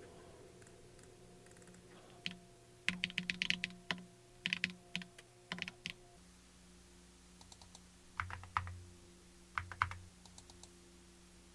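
Typing on a computer keyboard: a run of quick keystrokes starting about two seconds in, then a shorter burst about eight seconds in, over a faint steady hum.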